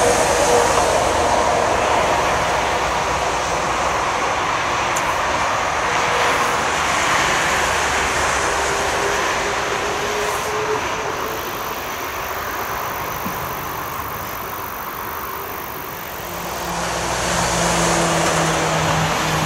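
Airbus A380's four Engine Alliance GP7200 turbofans running at low power on the ground, a steady rush with a faint whine that slowly falls in pitch as the jet moves away. About 17 seconds in it grows louder again with a lower hum.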